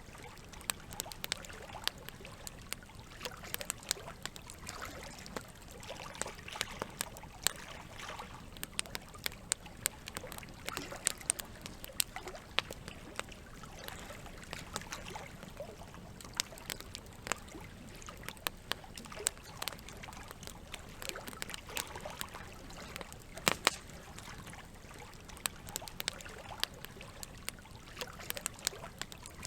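Campfire crackling, with frequent sharp irregular pops, over a steady bed of trickling water.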